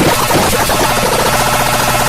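Harsh, distorted electronic emergency-alert sound: many clashing tones at once, pulsing rapidly, loud and unbroken.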